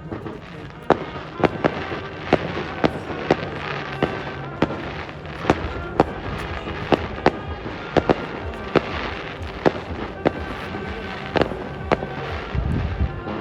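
Fireworks display: a rapid, irregular run of sharp bangs, roughly one or two a second, over continuous crackling, with a deeper rumble near the end.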